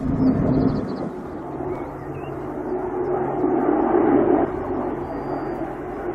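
Airbus A400M Atlas's four turboprop engines passing overhead, a steady engine drone carrying the aircraft's distinct low hum. It swells about a second in and again around four seconds in.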